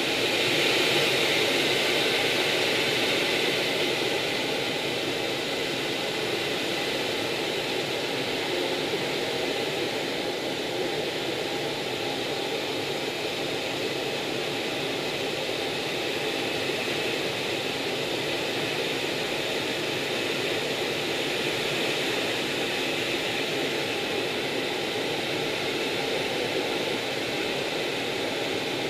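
Steady jet engine and rushing air noise heard from inside an aircraft in flight. It is a little louder for the first few seconds, then holds even.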